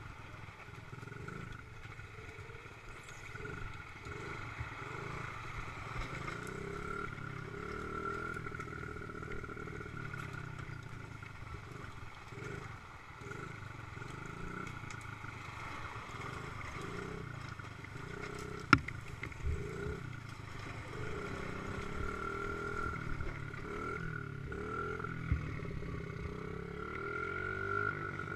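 Dirt bike engine running at slow trail speed, its note rising and falling with the throttle, with the engine of a side-by-side utility vehicle running just ahead. A single sharp knock about two-thirds of the way through, and a smaller one a few seconds later.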